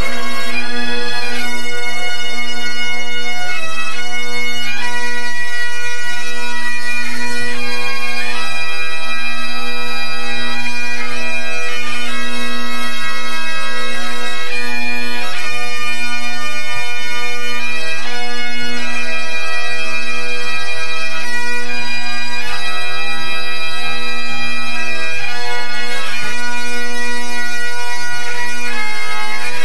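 A pipe band's Great Highland bagpipes playing a tune together over their steady drones during the band's tune-up before competing. The playing is loud and continuous.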